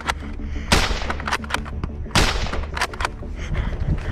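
Foam-dart blaster shots: two loud pops about a second and a half apart, among lighter clicks.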